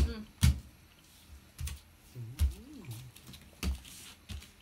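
Scattered sharp clicks and knocks of tableware on a dinner table (bowls, spoons and chopsticks being set down and tapping dishes), about six in all. A brief faint wavering whine comes in the middle.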